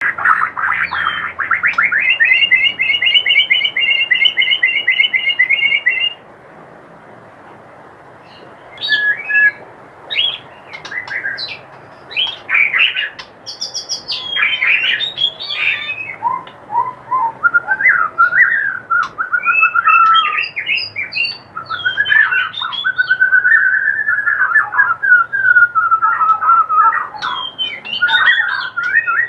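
White-rumped shama (murai batu) singing: a fast, dry rattling 'kretekan' of rapidly repeated notes for about six seconds, then, after a short pause, a varied run of loud whistles, slurred notes and trills.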